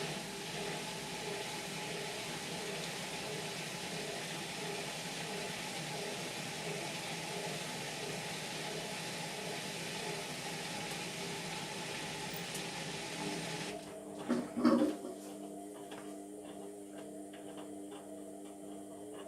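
Indesit washing machine with water rushing through it over a steady hum. About two-thirds of the way in the rush of water stops, a couple of short gurgles follow, and the hum runs on until the end.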